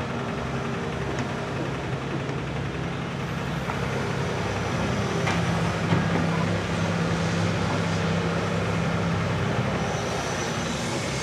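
Diesel engine of a Hitachi Zaxis 280 LCN hydraulic excavator running under working load, a steady low drone that grows stronger about five seconds in and eases near the end, with a short knock about six seconds in.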